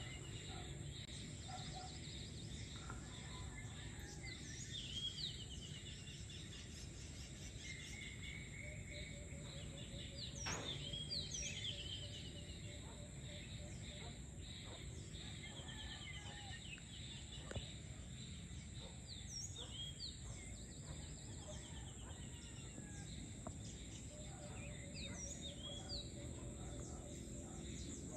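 Outdoor evening ambience: many birds chirping and calling with short repeated trills, over a steady high insect hum and a faint low background rumble.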